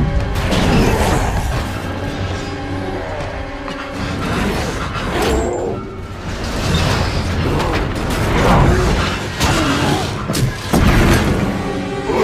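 Action film soundtrack: orchestral score mixed with sound effects of a fighter jet being torn apart, with scraping and crashing metal and booms as it goes down burning.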